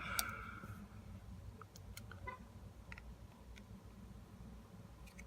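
Faint scattered small clicks and a brief scrape at the start, from small tools and phone parts being handled on a work surface during iPhone repair.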